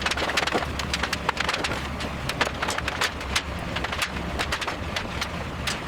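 Demolition and debris-clearing noise: irregular sharp knocks and cracks of wood, several a second, over a steady low rumble.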